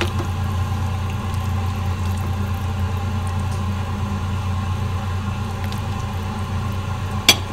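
A steady low hum with one sharp click about seven seconds in, as a plastic ladle stirs soup in a stainless steel pot on the stove.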